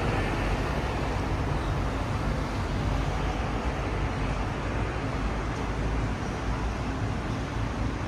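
Steady city street ambience: a continuous low rumble of road traffic with no distinct events.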